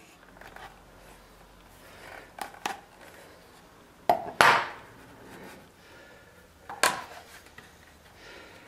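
Hand tools such as steel pliers knocking and clattering as they are handled and set down on a workbench cutting board: a couple of light clicks about two and a half seconds in, two sharp knocks with a short scrape about four seconds in, and one more knock near seven seconds.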